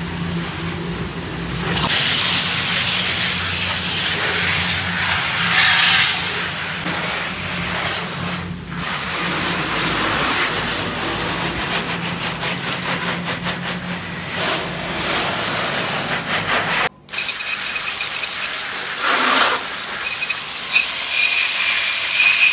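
Garden hose pistol nozzle on its jet setting, hissing as a strong spray of water hits and splashes off a car's glass, roof and wheel, rinsing off the shampoo. A steady low hum runs underneath for most of it, and the sound breaks off for an instant about two-thirds of the way through.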